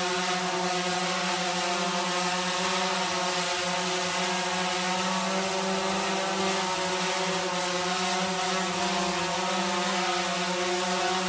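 DJI Phantom 3 Advanced quadcopter hovering, its four motors and propellers giving a steady, pitched buzz.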